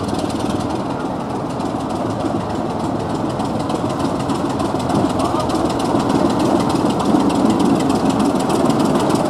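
British Rail Class 24 diesel locomotive's Sulzer six-cylinder engine running as the locomotive approaches slowly and passes close by, steadily growing louder.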